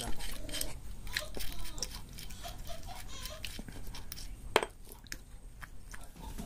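Small clicks and scrapes of hands handling a motorcycle starter motor's brush-holder end cap, with one sharper click about four and a half seconds in.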